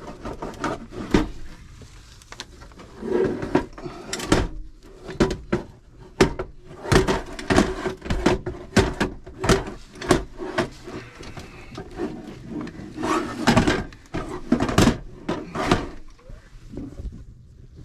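Irregular knocks, clunks and short scrapes of a power inverter's casing being handled and slid into line on top of another inverter, worked one-handed. The knocks come in clusters and fade near the end.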